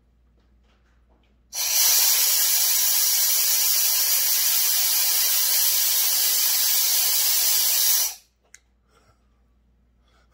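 Compressed-air blow gun hissing steadily for about six and a half seconds as it blows into the muffler of a Stihl TS 350 Super cut-off saw, starting sharply about a second and a half in and cutting off suddenly. No air comes out the other end: the muffler is stopped up.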